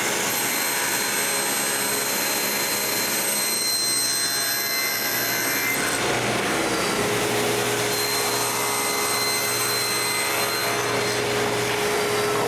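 Power saw running steadily while cutting a walnut corner block, its hum shifting slightly in pitch about halfway through.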